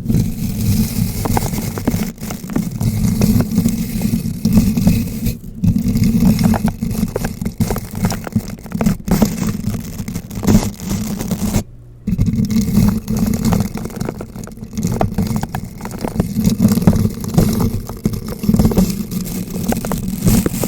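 Bristle brush rubbed and rotated directly against a bare microphone: continuous scratching and crackling over a heavy low rumble from contact with the mic, with a brief pause just after halfway.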